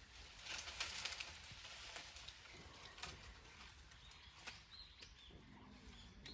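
Dry leaves and twigs rustling and crackling in brush, loudest about a second in. A few faint, short, high bird chirps follow in the second half.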